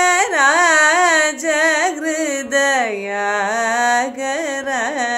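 Woman singing a Carnatic kriti in raga Sahana, a long sung phrase with wavering, ornamented gamaka notes that glide down to a lower held note about three seconds in, over a steady drone.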